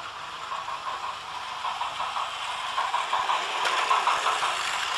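Battery-powered Takara Tomy Plarail toy train running on plastic track: a small motor whirring and wheels rattling. It grows louder from about three seconds in as a train comes closer.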